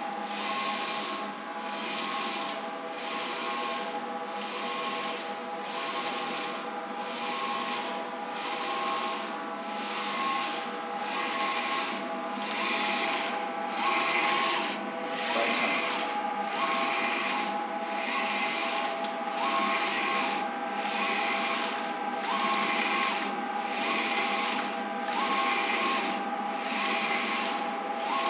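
Large-format eco-solvent printer printing on PVC, its print-head carriage sweeping back and forth across the media with a swishing pass about once a second over the machine's steady hum.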